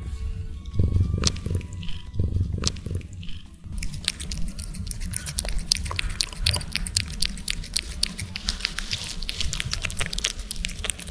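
Cat rubbing its head against a microphone, heard as low rubbing thumps, then from about four seconds in the fast wet clicks of a cat licking a squeeze-tube cat treat right at the microphone.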